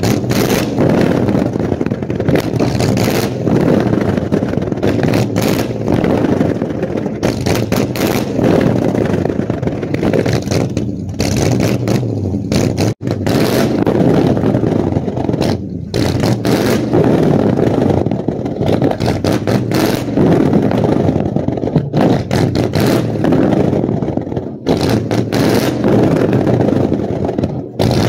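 Custom 1960s Pontiac's engine running and revving through its dual exhaust, with rapid sharp pops as the exhaust flame throwers ignite fuel in the tailpipes.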